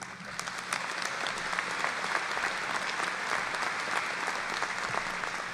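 Large audience applauding, dense steady clapping that swells up in the first second and starts to thin out near the end.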